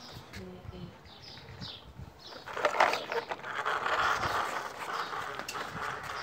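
Plastic toy truck loaded with toy cars, pulled by a string, rolling and rattling over a rough wooden plank. It gets louder about two and a half seconds in. Before that there are a few short bird chirps.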